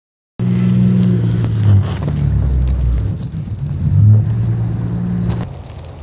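Engine of a pickup snowplow truck running, its pitch stepping up and down as it maneuvers. There is a low rumble partway through, and the sound drops off shortly before the end.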